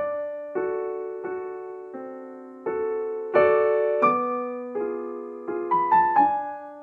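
Background piano music: slow notes and chords struck about every two-thirds of a second, each ringing and fading, with a quicker run of notes near the end.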